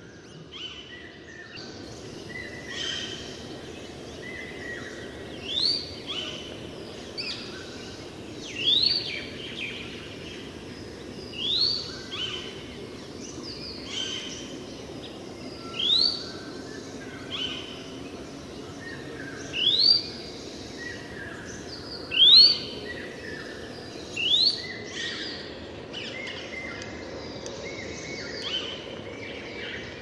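Forest bird chorus, with one bird repeating a loud, sharply rising note about every three seconds, over a steady background hiss.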